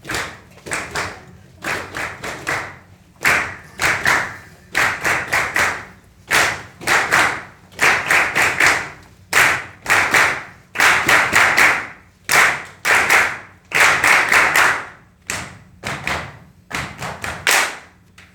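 Hands clapping in a rhythmic pattern: quick runs of three to five claps separated by short pauses, repeated over and over.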